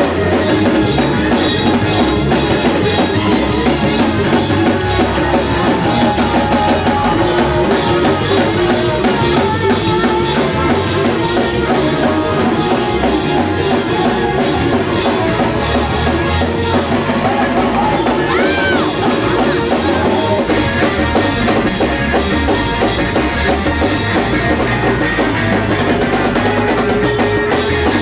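Loud live church band music driven by a drum kit with steady fast strokes, bass and other instruments underneath, the kind played for a praise break.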